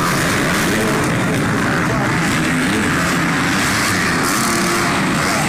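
Several motocross dirt bikes racing around the track, their engines revving and running together in a continuous overlapping drone.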